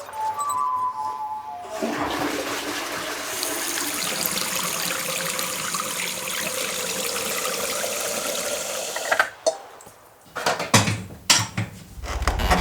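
Rushing, flushing water for about seven seconds that cuts off suddenly, followed by several sharp knocks. A brief pitched tone sounds just before the water starts.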